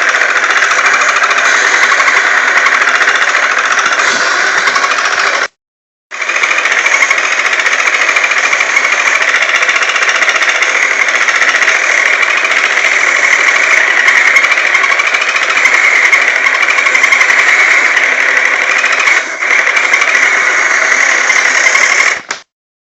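Toy disc sander's small motor running with a loud, steady buzzing rattle as wood is sanded against the disc. It cuts off abruptly about five and a half seconds in, starts again half a second later, and cuts off again just before the end.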